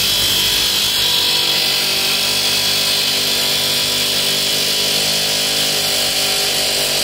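Pneumatic air hammer (air chisel) running in one loud, unbroken stretch as it hammers at a rear differential mount bushing that will not come out. The bushing is seized in place by road-salt corrosion.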